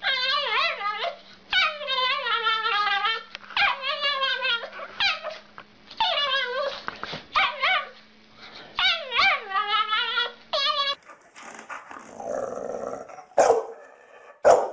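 Small dog giving a run of high, wavering, howl-like cries, each about a second long and rising and falling in pitch. Near the end a larger dog barks twice, short and sharp.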